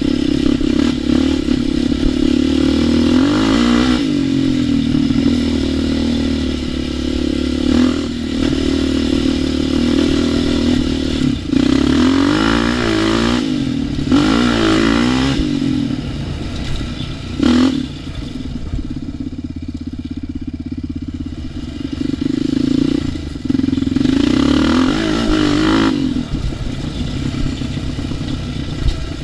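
ATV engine under riding, the throttle opening and closing repeatedly so the pitch swings up and down. There is a sharp knock about two-thirds of the way in, followed by a quieter off-throttle stretch before the engine picks up again.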